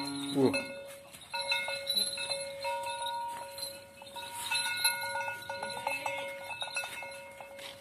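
A Peranakan Ongole bull's low moo falling in pitch and ending about half a second in, then the brass bell on its collar clanking and ringing over and over as the bull walks.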